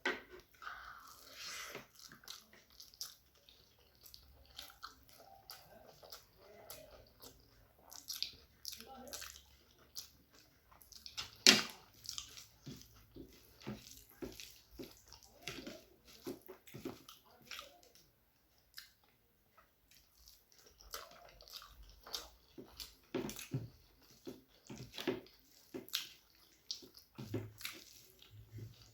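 Close-up eating sounds: wet chewing, lip smacks and squishing of rice and curry, with many irregular small clicks and one sharper knock about eleven seconds in.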